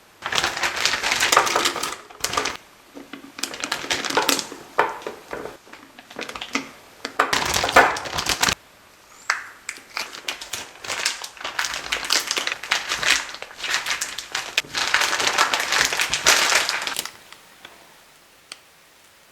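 Crinkling plastic being handled in repeated bursts with brief pauses, stopping about 17 seconds in.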